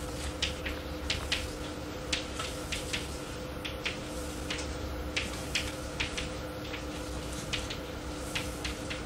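Steady hum and hiss of an old lecture cassette recording, with a run of light, sharp clicks and taps at irregular spacing, about two or three a second.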